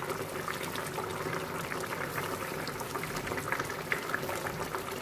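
Egg kuzhambu, a thick tomato and coconut-milk gravy with eggs poached in it, bubbling at a steady boil in a stainless steel pan, with many small pops of bursting bubbles.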